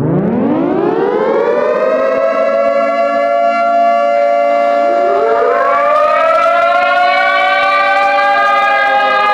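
Civil-defense-style outdoor warning siren winding up from silence, its pitch rising over about two seconds and then holding steady. About five seconds in, a second, higher tone rises and joins it, and the two hold together as a steady two-note wail.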